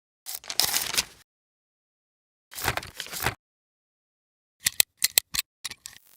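Sound-effect samples played one after another with dead silence between them: two short noisy scraping bursts, then a quick run of about six sharp clicks near the end.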